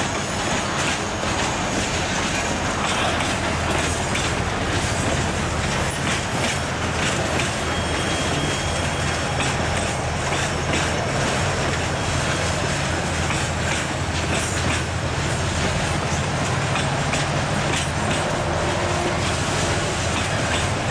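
Freight train of covered hopper cars rolling past close by: steady rumble of steel wheels on rail with clickety-clack over the rail joints, and a brief thin wheel squeal about eight seconds in.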